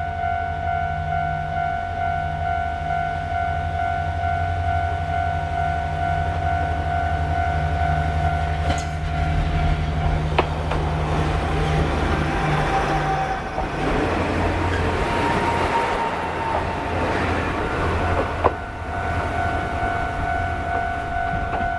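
KiHa 40 diesel railcar train pulling away and passing a level crossing, its diesel engine giving a steady low rumble. The rumble gives way to the louder rush and a few sharp clicks of the cars' wheels over the rail joints as the train goes by. A level-crossing warning bell rings steadily on one tone throughout and stands out clearly again near the end.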